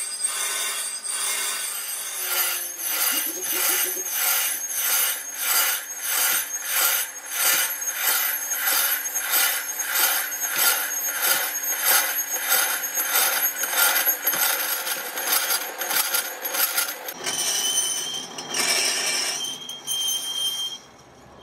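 Lathe tool cutting a cast-iron truck brake drum as it turns: a scraping rasp that swells and fades about twice a second, with high ringing tones over it. The sound changes about three-quarters of the way through and then drops away suddenly just before the end.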